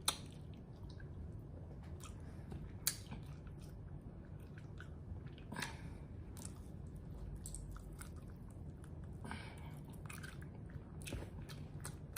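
A person quietly chewing and biting into chicken wings, with scattered soft mouth clicks and smacks at irregular times.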